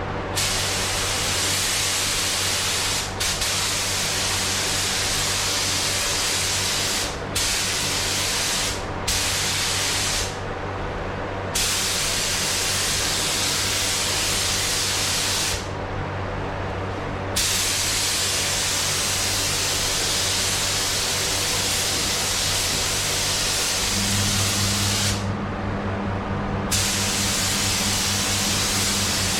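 Spray gun hissing as it lays grey base coat over primed panels, the trigger let off briefly a number of times, with a steady low hum underneath that grows stronger near the end.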